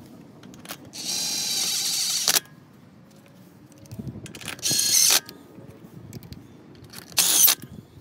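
DeWalt cordless impact driver spinning in the hub flange bolts in three short runs of high motor whine, the first about a second and a half long, the others shorter. Light clicks of bolts and hardware being handled come between the runs.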